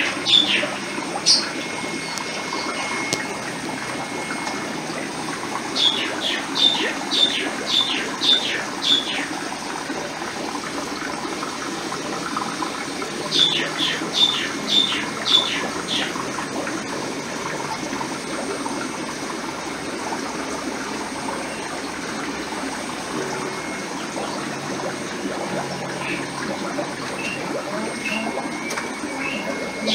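Steady bubbling and gurgling of water from an aquarium's air-driven sponge filters. Over it, a bird calls several times in runs of sharp high notes, about two a second.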